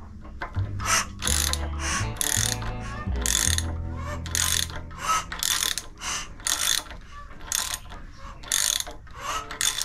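A ratchet wrench clicks in short repeated strokes, about one a second, as the crankshaft of a rebuilt Mazda WL-T four-cylinder diesel is turned over by hand. The engine turns freely, with no knocks or hard spots heard.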